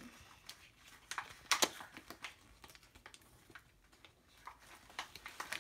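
Scattered light clicks and taps of small plastic toys and packaging being handled, a few of them sharper than the rest.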